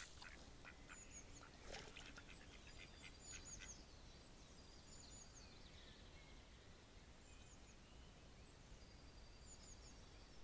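Faint mallard quacks, a short run of calls about two to four seconds in, with small birds chirping high and thin throughout.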